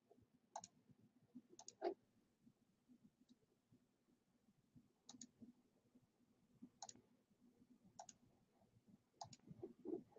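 Faint, sharp clicks of a computer mouse, about half a dozen, some single and some in quick pairs, a second or two apart, over a faint low hum.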